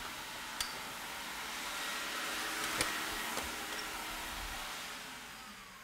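A steady rushing hiss, like air from a fan or blower, that swells over the first two seconds and fades out near the end, with a few faint clicks.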